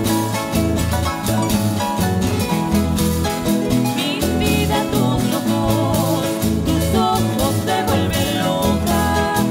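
Live Chilean cueca music: strummed guitars and harp playing a steady, lively beat, with singing coming in about four seconds in.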